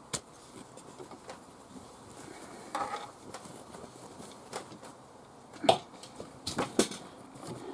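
Scattered sharp clicks and knocks of an embroidery hoop being handled as the stitched piece is taken out of it, the loudest few coming close together near the end.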